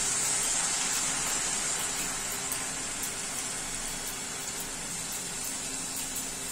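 Freshly washed shredded potato deep-frying in hot oil in a wok: a loud, dense sizzle from the water on the strands boiling off, easing slightly over the seconds.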